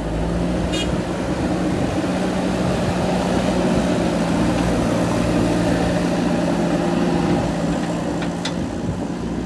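JCB 3DX backhoe loader's diesel engine running steadily while working, a little louder through the middle, with two brief high-pitched clicks, one about a second in and one near the end.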